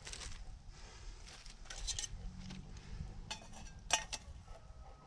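A metal camp pan and cookware being handled: a few light clinks and knocks, the sharpest about four seconds in.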